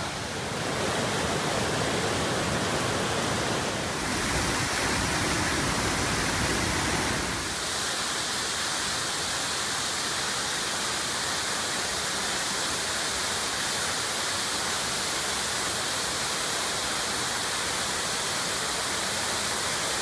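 Waterfall cascading over rock into a pool: a steady rush of falling water. The sound changes abruptly twice, about four and seven and a half seconds in, as a different fall takes over.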